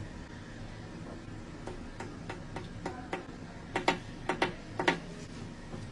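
A series of sharp clicks or taps at an uneven pace, growing louder, the loudest coming in quick pairs about four to five seconds in, over a low steady hum.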